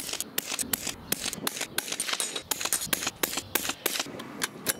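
Rifle scope turret being dialled: a rapid, irregular run of crisp clicks, several a second, on a Discovery ED-LHT Gen2 3-15x50 scope with 0.1 MRAD click steps.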